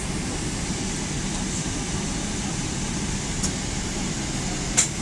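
Steady airliner cabin noise, a low even rush of engines and air conditioning with a faint hum. A sharp click sounds just before the end, with a fainter one a little earlier.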